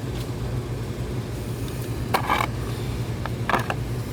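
A steady low hum throughout, with brief scraping and a couple of faint clicks about two and three and a half seconds in: handling noise as a tire repair plug strip is worked with rubber cement.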